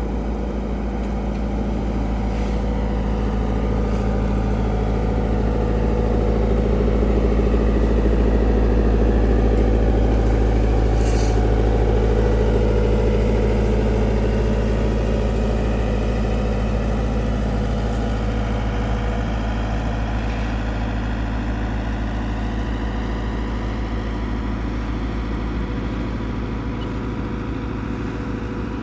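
Engine of a heavy road-paving machine running steadily, growing louder toward the middle and easing off again as the machine moves back and forth.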